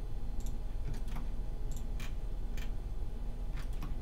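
Computer mouse and keyboard clicks: about nine short, sharp clicks at irregular intervals over a faint steady hum from the recording.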